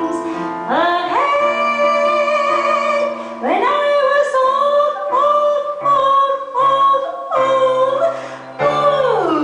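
Woman singing live with an instrumental backing, holding long notes that each swoop up into pitch, with a falling slide near the end.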